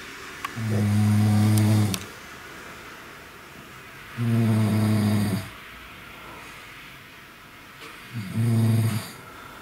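A man snoring in his sleep: three long, low-pitched snores, one about every three and a half seconds.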